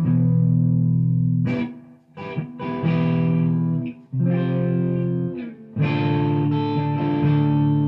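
Gibson Les Paul Studio electric guitar through a Marshall DSL40C valve amp, playing a looped phrase of overdriven, sustained chords with short breaks between them.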